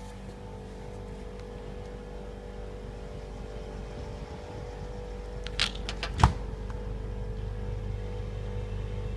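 Double-door stainless steel fridge-freezer running with a steady hum that slowly grows a little louder, the cooling unit having come on. A little past halfway there is a sharp click, then a louder short knock.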